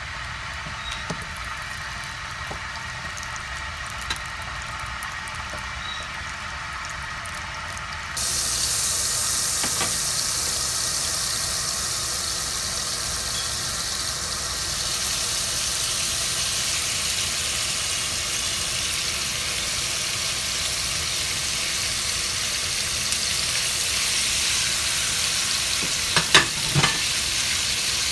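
Diced raw red meat frying in hot oil in a frying pan. A quieter hiss from the oil jumps suddenly to a loud, steady sizzle about a third of the way in, as the meat hits the oil. Near the end, a wooden spoon stirring the meat knocks against the pan a few times.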